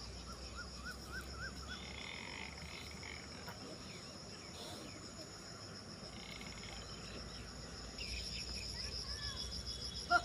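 Steady, high, pulsing chirring of an insect chorus, with a short run of rising-and-falling chirps about a second in and the chorus growing louder near the end.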